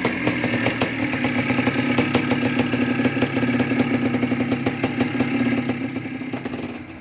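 Yamaha DT250's single-cylinder two-stroke engine running at a steady speed, a fast even run of firing pulses that fades near the end.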